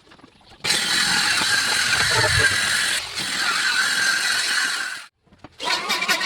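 A power tool running on wood with a steady, loud machine noise. It cuts out suddenly about five seconds in, then starts again a moment later with a choppier, rapidly pulsing sound.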